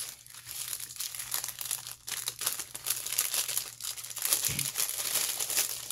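Clear plastic packaging crinkling and rustling irregularly as it is handled and a bundle of yarn and trims is pulled out of it.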